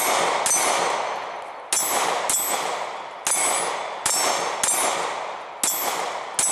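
Glock 26 9mm pistol firing a string of about eight shots at an uneven pace. Each shot is followed by steel plate targets ringing as they are hit, the ring fading over about a second.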